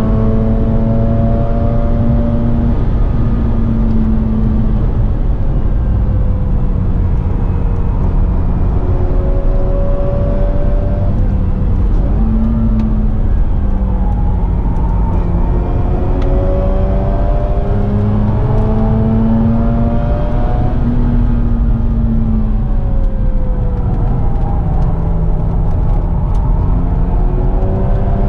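A stock Mazda RX-8's twin-rotor Wankel rotary engine, heard from inside the cabin, driven hard with its pitch climbing and dropping again and again through gear changes and corners. Steady road and wind noise runs underneath.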